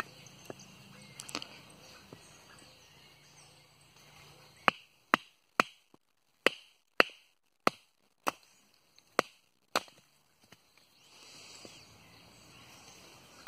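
A wooden baton knocking on the spine of a small carbon-steel bushcraft knife, driving it down through a split of firewood (batoning). About ten sharp knocks come roughly two a second, starting about five seconds in.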